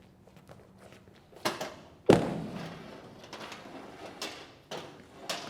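A series of knocks and thuds: one knock about a second and a half in, then a heavier thud half a second later that dies away slowly, followed by several lighter knocks.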